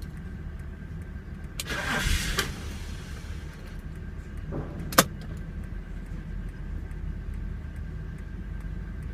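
2006 BMW X5 3.0i's straight-six turning over on the starter without catching, a steady low churn. A short rushing noise comes about two seconds in and a sharp click about five seconds in.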